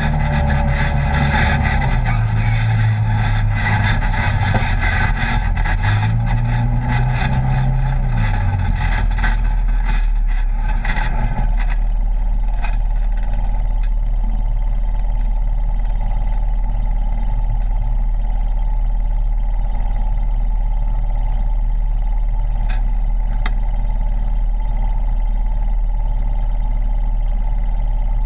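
Polaris RZR side-by-side's engine under way on a rough dirt trail, its pitch rising and falling with the throttle over rattling of the body for about the first twelve seconds. It then settles into a steady, even running, as at idle.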